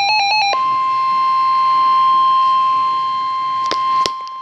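A rapid pulsing beep cuts off about half a second in and gives way to the steady 1050 Hz warning alarm tone of NOAA Weather Radio, the tone that precedes a new warning broadcast. A few sharp clicks come near the end.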